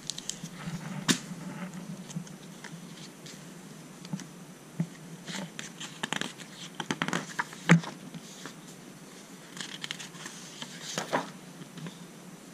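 Hardcover library picture book in a plastic jacket being opened and its pages turned: paper rustling and crinkling with scattered sharp taps, the loudest a little under eight seconds in.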